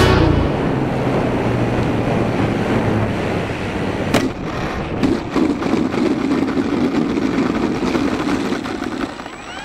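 Onboard sound of a Durafly Tundra V2 RC plane landing on an asphalt road: wind rush over the microphone and a low hum. A sharp knock comes about four seconds in as it touches down, followed by the rough rumble of its wheels rolling on the asphalt, which dies down near the end as it stops.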